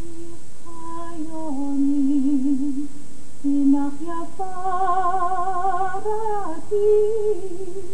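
A solo female voice singing a slow, wordless melody in long held notes with vibrato, with short pauses between phrases.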